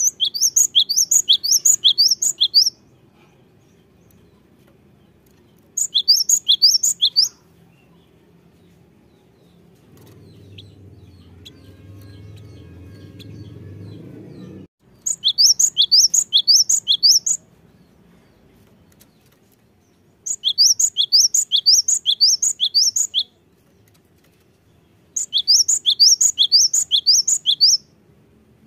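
Gelatik batu (great tit) singing in five bursts of quick, repeated high notes, each note falling in pitch. Each burst lasts two to three seconds, with pauses between them. In the middle, a quieter low rumbling noise swells for about five seconds and then cuts off suddenly.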